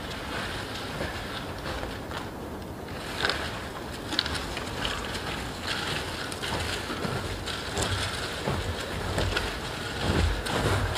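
Footsteps in snow, a regular step every half second or so, starting about three seconds in and growing louder toward the end, over a steady low wind rumble.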